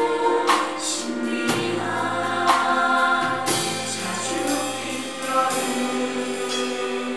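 Musical-theatre cast singing together as a chorus, backed by a live band whose cymbal strikes fall about once a second; the voices settle into long held notes in the second half.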